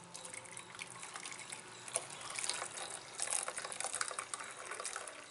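Boiled milk pouring from a steel vessel through a steel mesh tea strainer into a steel pan, trickling and splashing steadily with small metal clinks. It is being strained to catch the skin.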